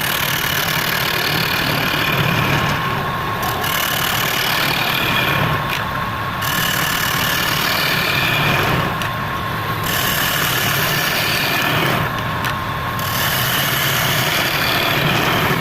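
Woodturning lathe motor running steadily with a low hum and a high whine, the sound easing briefly about every three seconds.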